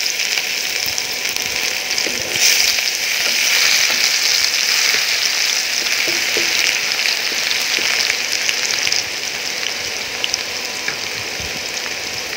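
Crushed ginger and garlic sizzling in hot mustard oil in a kadai, stirred with a wooden spatula. The sizzle swells about two seconds in and eases a little after about nine seconds.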